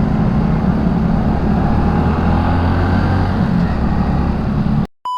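Honda Revo Fi single-cylinder motorcycle engine running steadily under way, with road and wind noise. Near the end the sound cuts off suddenly and a steady beep tone starts.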